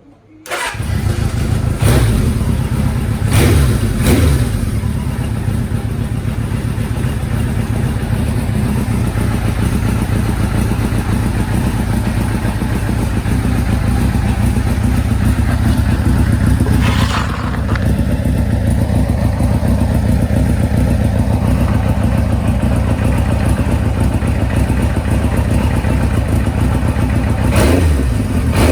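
Kawasaki Z1's air-cooled inline-four starting up, catching about half a second in, then idling steadily with a few brief throttle blips. It starts without the abnormal starting noise, which has been cured.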